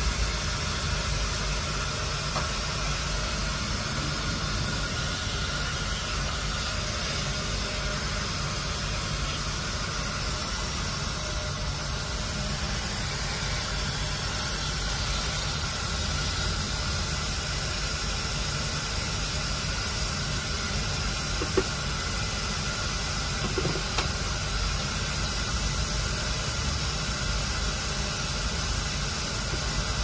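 Loud air conditioning in a Scania OmniExpress coach, blowing with a steady hiss over a low rumble from the bus.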